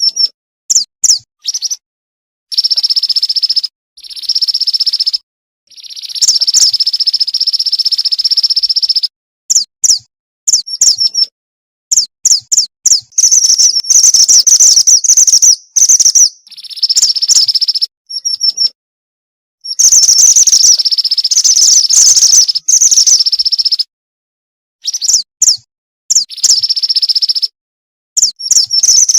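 Calls of a female mountain mantenan bird played as a lure: quick high-pitched chirps alternating with long, thin, buzzing trills, in bursts that start and stop abruptly with short silences between.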